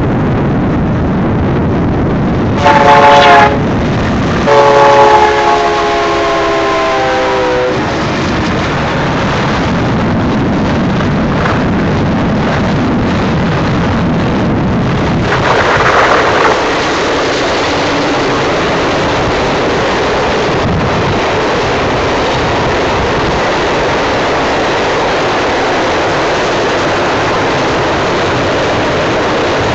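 Union Pacific locomotive multi-note air horn sounding twice, a short blast about three seconds in and a longer one from about four and a half to nearly eight seconds, its chord sagging slightly in pitch as the locomotives move away. Then the steady noise of auto rack cars rolling past with wheel clatter, briefly louder about sixteen seconds in.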